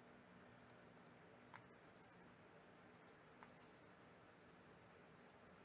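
Near silence: a faint steady room hum with two faint clicks of a computer mouse, a couple of seconds apart.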